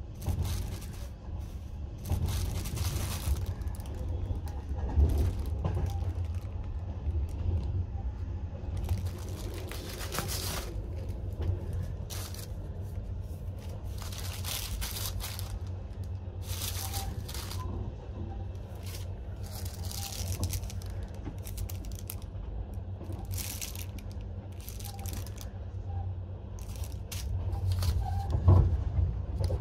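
Plastic packaging of a sleeper-car amenity kit crinkling and rustling in irregular bursts as it is handled. Under it, the steady low rumble of the train running.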